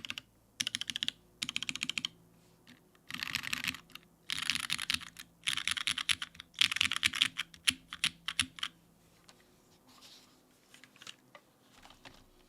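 Mechanical keyboard with lubed Cherry MX Red Hyperglide linear switches on an aluminium plate and GMK keycaps, typed on in quick bursts of keystrokes. The typing thins out to a few scattered single presses over the last few seconds.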